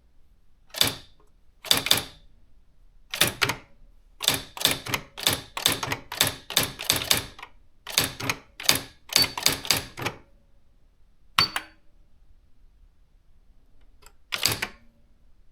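Nakajima AX-80 electronic typewriter being typed on, its keys striking in quick irregular runs for about ten seconds. Two more single strikes follow after a pause, the first with a brief high tone.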